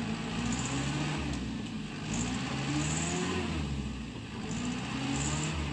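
Dump truck's diesel engine revving up and falling back twice, its pitch climbing over the first few seconds, dropping about four seconds in, then rising again.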